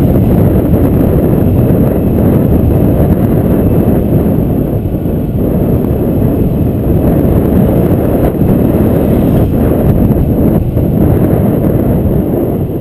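Wind buffeting the microphone of a camera on a moving motorbike, a loud steady rumble with road and engine noise blended in.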